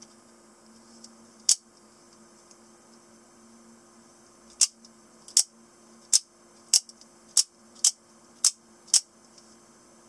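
PK72 automatic spring knife firing and retracting its blade: nine sharp snapping clicks of the spring mechanism, one about a second and a half in, then eight in quick succession, roughly one every half second or so.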